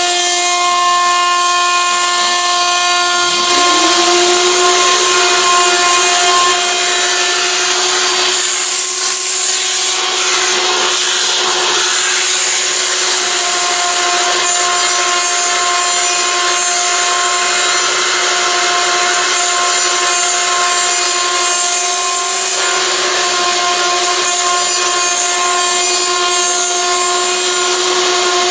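A Carbide 3D CNC router's spindle whining steadily as its end mill cuts a circular pocket in a black plastic plate. A vacuum cleaner also runs, sucking chips from the cut, with a rising tone about three seconds in.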